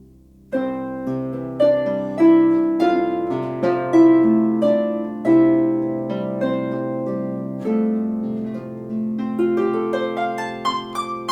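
34-string Celtic harp played by hand: a melody of plucked notes over lower ringing notes, beginning about half a second in, each note struck sharply and left to ring so that several overlap.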